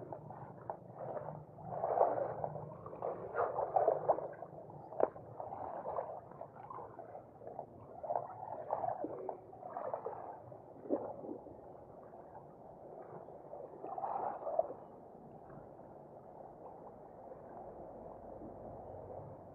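Small waves lapping and gurgling among the rocks at the waterline, in irregular splashy surges with a few sharp clicks.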